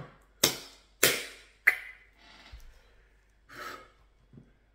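Two sharp breathy exhalations from a man, about half a second apart, then a light click and, a little later, a brief scrape of a utensil in a bowl of stew.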